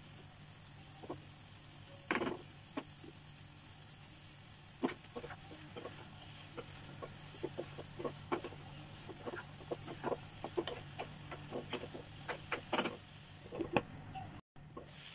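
Wooden spatula stirring diced pumpkin and peas in a nonstick frying pan: irregular scrapes and taps against the pan over a faint steady hiss and low hum.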